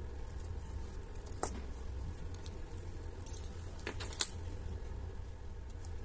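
A few small, sharp metallic clicks of watchmaker's tweezers and a screwdriver against the parts of an Orient 46941 automatic watch movement being taken apart. The loudest click is about four seconds in, and a low steady hum runs underneath.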